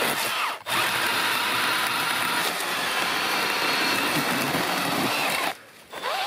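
Milwaukee M12 hatchet cordless pruning chainsaw running and cutting through a clump of small tree stems near the ground. The motor and chain keep up a steady high whir with a momentary drop about half a second in. It stops at about five and a half seconds, then spins back up with a rising whine.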